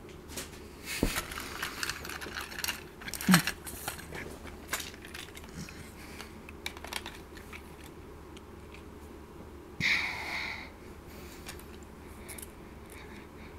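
Hard plastic Plarail toy train cars clicking and knocking as they are handled and set side by side. A short scraping rustle of just under a second comes about ten seconds in, followed by a few faint ticks.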